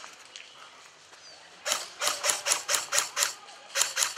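Airsoft guns firing: a fast string of sharp shots, about five or six a second, starting a little under halfway through and lasting about a second and a half, then a few more shots near the end.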